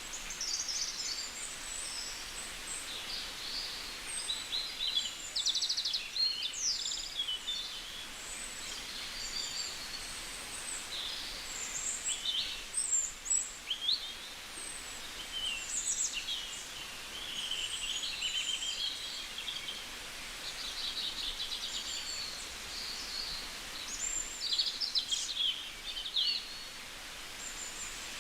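Several songbirds singing and calling at once: a dense overlapping chorus of high chirps, rapid trills and short whistles over a steady faint hiss of outdoor background noise.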